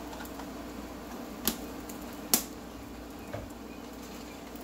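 Plastic tub of spread handled and set down on a countertop: two sharp clicks about a second apart, then a softer knock, over a steady low hum.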